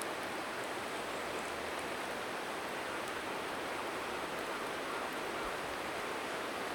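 A river flowing with a steady rushing sound, with a few faint crackles from a bonfire.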